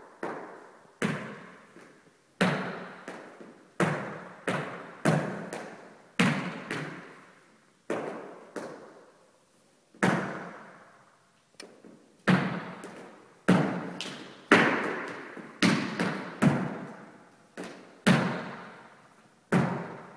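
Flamenco shoes striking a studio floor in uneven footwork, single stamps and quick pairs, each echoing in the bare room.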